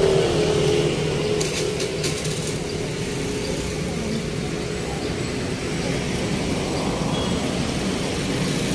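Steady road traffic noise from passing vehicles, with an engine's steady drone near the start.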